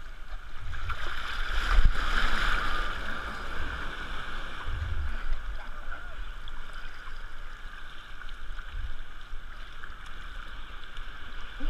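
Shallow ocean water sloshing and lapping around a camera held at the waterline. A small breaking wave rushes past about two seconds in, the loudest moment, with lower swells washing by later.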